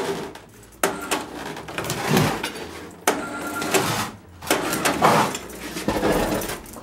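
An overhead hoist running in about three stop-start bursts as it lifts a Gardner diesel engine on its pallet, with knocks and creaks as the engine and pallet tip upright.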